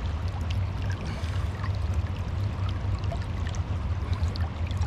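River water flowing, a steady rushing with a low rumble underneath.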